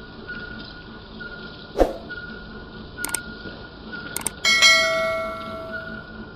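Subscribe-button animation sound effect: a few sharp mouse clicks, then a bright bell chime about four and a half seconds in that rings and fades over about a second and a half.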